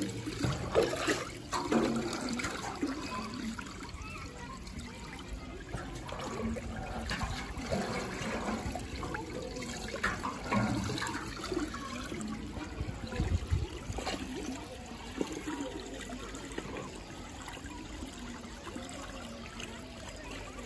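Water trickling and running steadily at a playground water-play area, with a few light knocks and splashes in the first couple of seconds.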